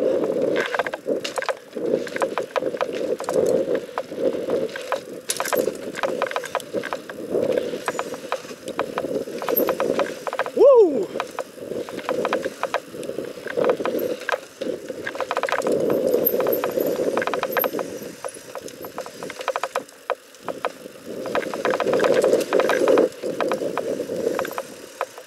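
Mountain bike ridden fast down a dirt forest trail: tyres rumbling over the ground and the bike rattling and clicking over bumps. A short squeal falling in pitch cuts in about ten seconds in and is the loudest moment.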